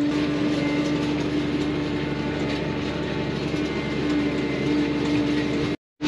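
Tractor engine running steadily, heard from inside the cab, a constant drone with one strong steady hum. It cuts out abruptly just before the end.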